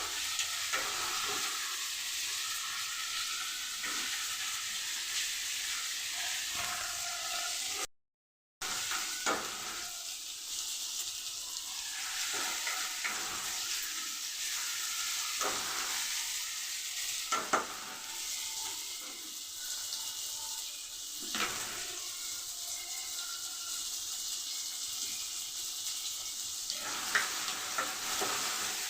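Onion, tomato and ginger-paste masala sizzling as it fries in oil in a pan, stirred with a spoon that clicks against the pan now and then: it is being fried until the raw smell of the ginger goes. The sound cuts out briefly about eight seconds in.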